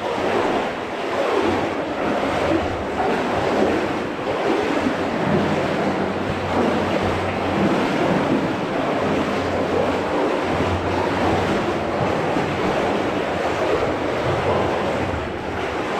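Steady splashing and rushing of water inside a mine adit, going on without a break.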